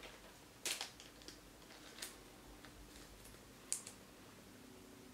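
Faint clicks and light rustling of glossy trading cards being handled and slid against one another, with a few sharp ticks, the clearest at about one second and near four seconds in.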